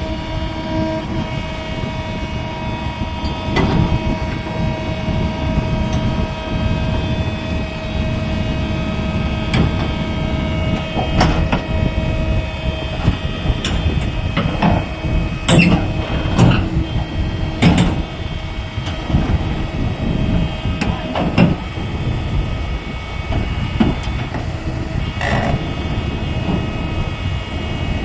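Diesel engine of a PC200 tracked hydraulic excavator running steadily, with repeated sharp metallic clanks and knocks, several in quick succession about halfway through.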